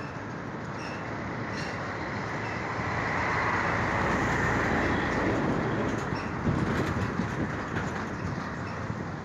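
Long freight train of boxcars rolling slowly along the track: a steady rumble and rattle of wheels on rail. It grows louder about three seconds in and eases after about six seconds.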